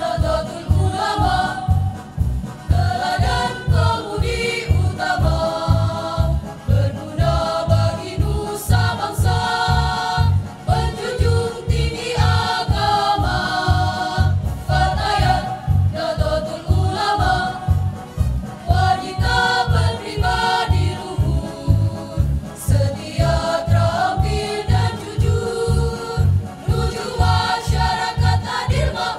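Women's choir singing together over a steady low beat of about two pulses a second.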